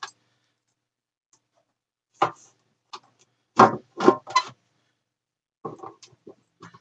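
A string of irregular knocks, clicks and scrapes as the battery eliminator's bottom cover is worked and pried to get it off while it snags. The sounds start about two seconds in and come more thickly near the end.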